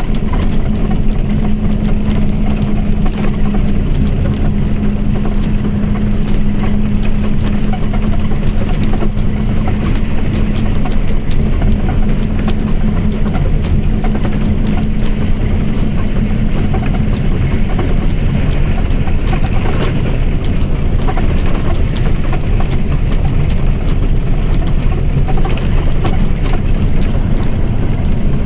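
Mercedes-Benz OF-1722M bus under way, its engine and drivetrain running steadily, with a steady whine from the differential over the first two-thirds that fades out after about seventeen seconds.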